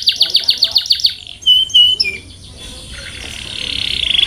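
Domestic canary singing: a fast run of repeated down-sweeping notes, about eight a second, then two short clear whistles, and a fine buzzing trill that swells louder near the end.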